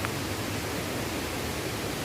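Mountain stream water rushing steadily, an even hiss, with one faint tick right at the start.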